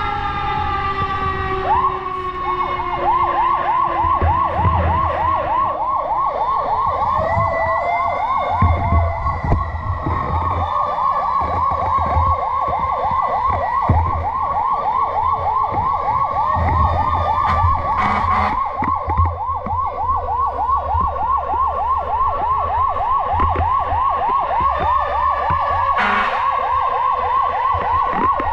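Fire truck siren: a wail winding down in the first couple of seconds, then switching to a fast yelp, about four warbles a second, that keeps going. A second siren glides up and down behind it, over a low engine and road rumble. Two brief sharp noises cut in, about two-thirds of the way through and near the end.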